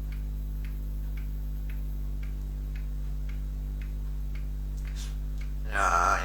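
A clock ticking evenly, about two ticks a second, over a steady low electrical hum. Near the end a talking parrot's voice starts.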